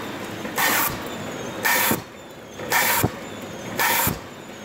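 Horizontal flowpack packaging machine running, with a short pneumatic hiss about once a second in time with its packing cycle, four times, and a couple of sharp mechanical clicks in the second half.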